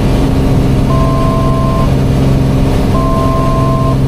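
Piper Archer's four-cylinder Lycoming engine droning steadily in flight, with two electronic beeps of about a second each, a second apart, each sounding two steady notes at once.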